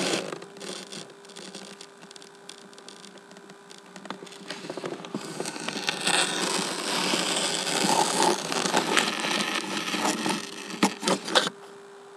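Rustling and rubbing noise on a handheld camera's microphone as it moves among rhubarb stalks and leaves. It swells into a broad hiss about halfway through and ends in a few sharp knocks, over a faint steady hum.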